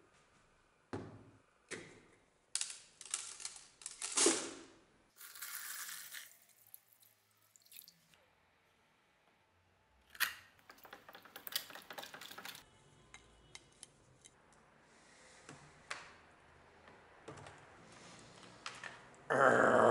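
Handling sounds from setting up an electrolysis rust-removal bath: a plastic bottle knocked and crinkled on the bench, water poured in for about a second, and steel electrodes and wires clicking and rattling as they go into the water.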